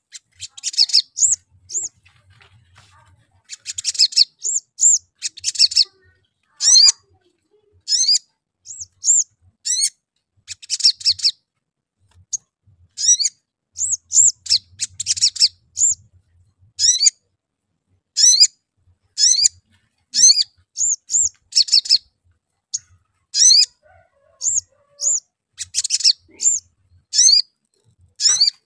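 Male olive-backed sunbird calling: a long run of sharp, very high 'cuit' chirps, each arching up and down in pitch, about one or two a second. Every few seconds they are broken by a short burst of rapid chattering notes, the 'crecet'.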